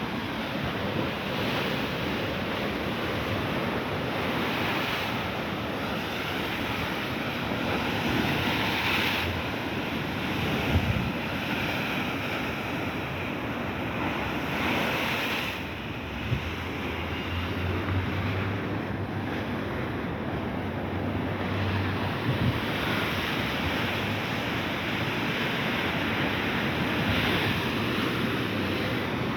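Sea waves washing and breaking on the shore, swelling and easing every few seconds, with wind buffeting the microphone. A low hum comes in for a few seconds past the middle.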